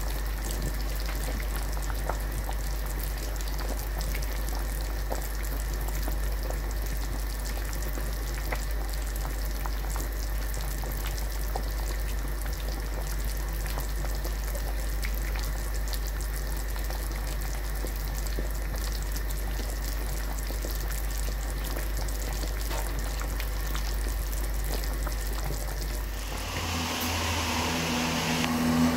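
Pot of salmon fish soup at a full boil: steady bubbling with many small pops over a low steady hum. Near the end the bubbling gives way to a louder steady hum.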